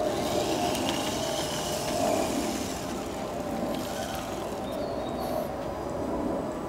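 Radio-controlled 6x6 pickup truck's electric motor and gears whining steadily as it drives up over dirt mounds.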